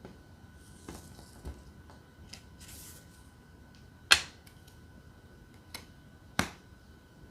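ASMR tapping and handling sounds: a handful of sharp clicks and taps, the two loudest about four and six seconds in, between short soft rustles.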